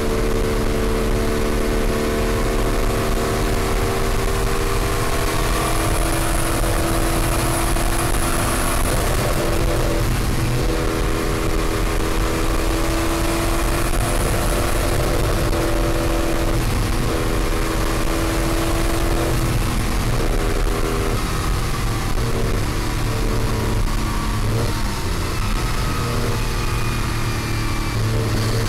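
Porsche 935 racing car's flat-six engine heard from inside the cockpit at racing speed, its pitch climbing and dropping as it changes gear several times, over a steady hiss.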